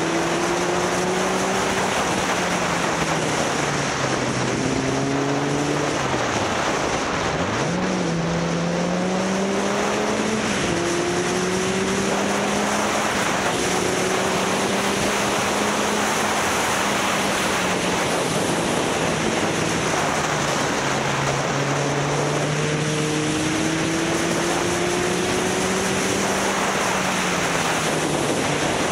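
Motorcycle engine running on the move, its pitch climbing steadily and then dropping back several times as the rider accelerates and eases off through the bends. Heavy wind and road noise on the camera's microphone runs underneath.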